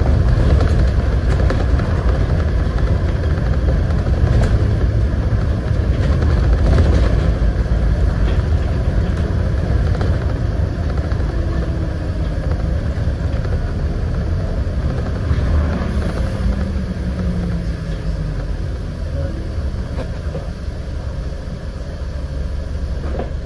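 Inside a Scania N94UD double-decker bus under way: steady engine drone and road rumble with small rattles from the body. About two-thirds of the way through, the engine note falls.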